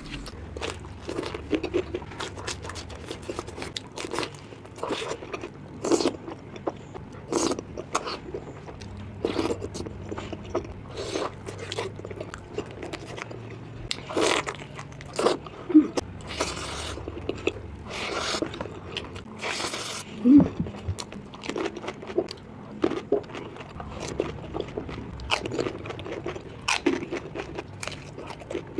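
Close-up eating sounds of crunchy street snacks: irregular crisp crunches from bites, with chewing between them, the loudest crunches about halfway through.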